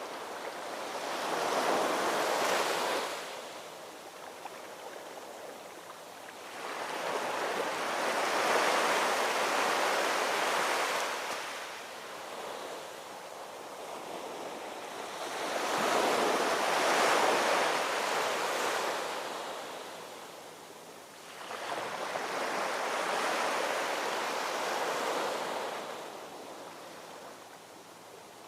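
Ocean waves washing in on a shore. Four surges come in, each building and falling away over several seconds.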